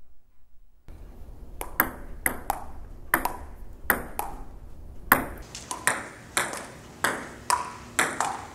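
Table tennis rally: the ball clicking off the paddles and bouncing on the table in a quick run of sharp hits, about two to three a second, starting about a second in.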